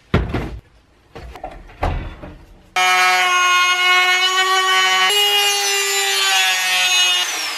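A few knocks and clunks, then about three seconds in a Dremel rotary tool switches on with a loud, steady high whine as it cuts a sheet of acrylic. Near the end it is switched off, and the whine falls in pitch as the tool spins down.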